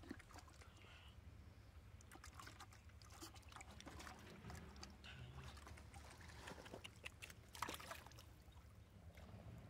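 Faint sloshing and trickling of shallow water, with many small scattered splashes and clicks.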